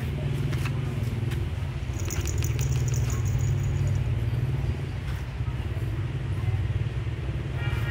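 An engine running nearby: a steady low rumble.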